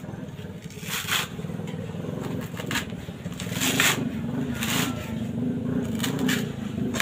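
Bolo knife chopping into and prying at a dry coconut husk: several sharp scraping, tearing strikes roughly a second apart, over a steady low hum.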